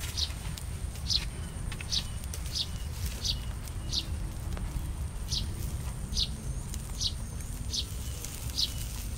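A bird repeating a short, high chirp about once a second, over a steady low rumble.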